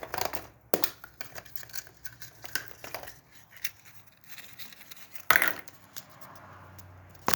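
Crinkling and rustling of wrappers and small prize items handled out of surprise eggs, with scattered light clicks and one louder knock about five seconds in.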